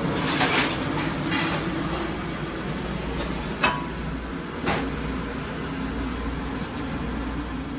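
Steady low mechanical rumble of kitchen noise, with a few sharp clinks about half a second, three and a half and four and a half seconds in.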